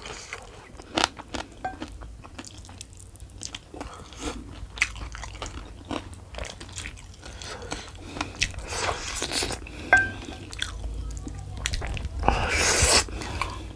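Close-miked eating of fried chicken: mouth chewing and smacking with many sharp, crunchy clicks. There are two louder stretches of dense biting and crunching, one about nine seconds in and one near the end.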